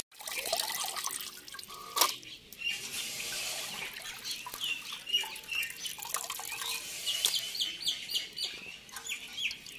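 Small birds chirping repeatedly, with a quick run of chirps near the end, over faint background noise. A single sharp click sounds about two seconds in.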